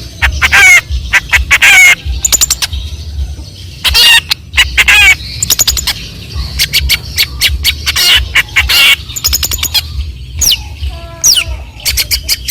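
Long-tailed shrike (cendet) singing in its mimicking style: rapid bursts of harsh chattering chirps and twitters copied from other birds, broken by short pauses, with a few quick falling whistles near the end. A steady low hum runs underneath.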